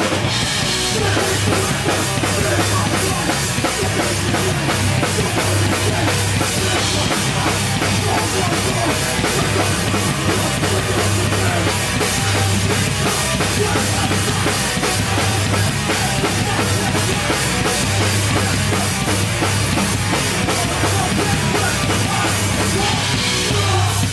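Hardcore punk band playing live, with a loud drum kit driving the song at a fast pace.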